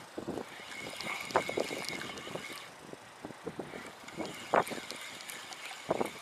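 Spinning reel being cranked to bring in a hooked fish, with irregular clicks and knocks from the reel and handling. Wind buffets the microphone throughout.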